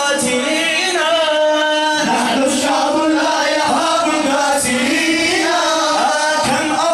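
Male voices singing an Arabic nasheed, with long gliding melodic lines over a steady held note.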